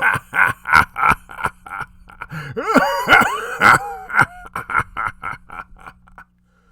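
A voice making a run of short, evenly spaced vocal bursts, about three a second, with a few rising and falling cries in the middle, fading out and stopping near the end over a faint steady hum.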